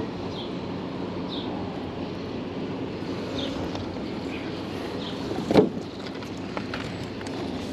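Steady low motor hum, with a single sharp thump about five and a half seconds in.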